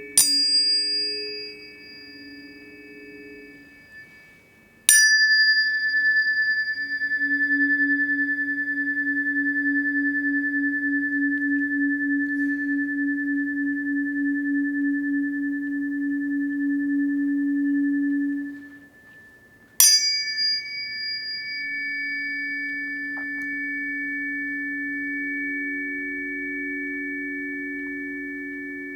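Tuning forks struck three times, each giving a bright metallic ping that settles into a long, high, pure ringing tone. A lower pulsing tone hums underneath.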